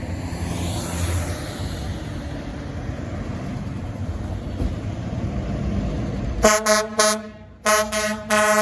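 Heavy truck engine rumble and road noise, then near the end a fire engine's air horn sounds in a string of short blasts, one steady pitch.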